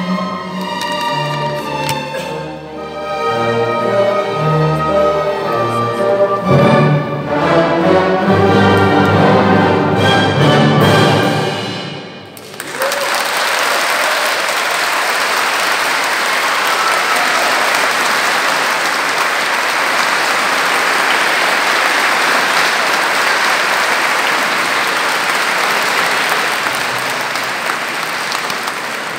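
Orchestra with strings and brass playing the closing bars of a classical piece, building to a loud final chord that cuts off about twelve seconds in. The audience then applauds steadily for the rest of the time.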